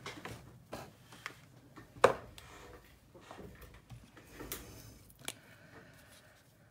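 A few light clicks and taps from handling things on a craft table, the sharpest about two seconds in. Near the end comes a click as the cap of a VersaMark marker is pulled off.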